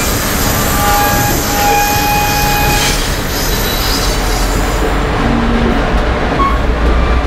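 GO Transit cab car rolling out over the station trackwork: the steel wheels squeal in several high tones for about the first three seconds, then settle into a steady rumble of wheels on rail with a low hum.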